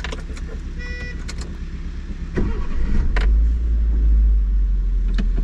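Engine of a small manual-transmission van heard from inside the cab, a low running rumble that swells louder about three seconds in. A few sharp clicks and a short beep-like tone about a second in sit over it.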